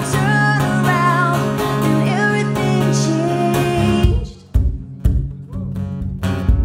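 A woman singing over a strummed acoustic guitar. About four seconds in the voice stops, leaving the guitar alone on sharp, separated strummed chords.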